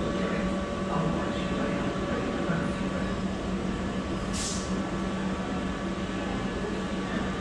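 Stationary electric multiple-unit train humming steadily at the platform, its onboard equipment giving a constant mid-pitched drone with a few steady tones. A short hiss cuts in about four seconds in.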